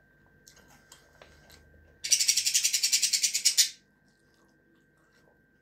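Pet budgerigar making a loud, rapid, rattling burst of about twenty quick pulses lasting about a second and a half, after a few light clicks and taps.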